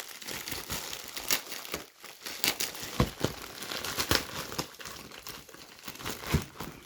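Packaging crinkling and crackling as a parcel is unwrapped by hand, a steady rustle broken by several sharper snaps, the loudest about three and four seconds in and again near the end.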